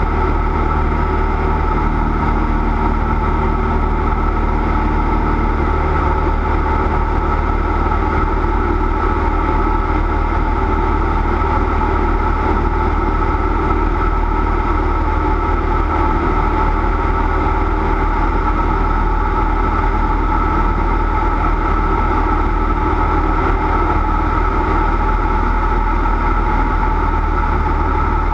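Cessna 172's piston engine and propeller droning steadily at constant power.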